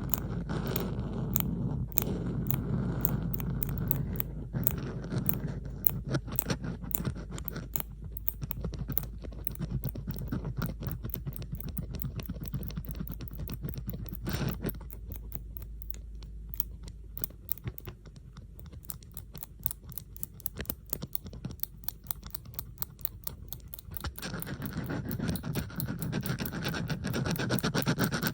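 Bobby pins handled close to the microphone in a layered ASMR recording: a dense run of small metallic clicks and scratching. A fuller scraping layer underneath thins out around the middle and comes back near the end.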